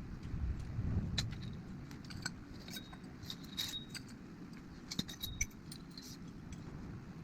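Irregular light metallic clinks and taps of hand tools and small metal parts being handled during work on a motorcycle front fork, a few of them ringing briefly.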